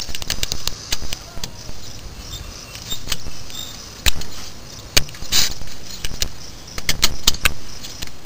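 Metal clicks, clinks and a short scrape of drum brake springs and hardware being handled and fitted with hand tools, in irregular bursts with several sharp knocks.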